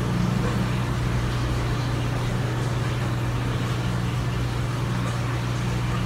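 Steady low machine hum with no change in pitch or level.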